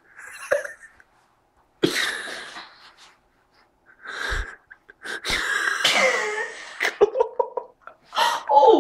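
A woman's voice in a few short, sharp, breathy bursts with sudden starts, turning into pitched laughter in the second half.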